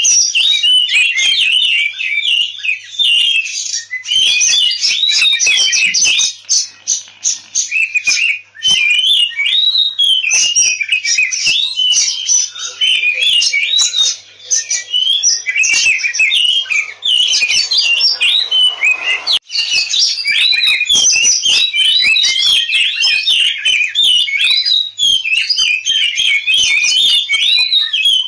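Oriental magpie-robin singing its aggressive fighting song (ngobra tarung): a fast, nearly unbroken stream of varied whistles mixed with harsh, clicky notes. The song breaks off briefly three times.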